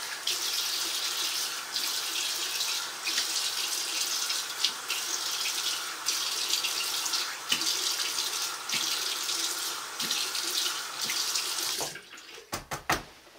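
Bathroom sink tap running steadily while cold water is splashed onto the face, with repeated small splashes. The water is shut off about twelve seconds in, followed by a few short clicks.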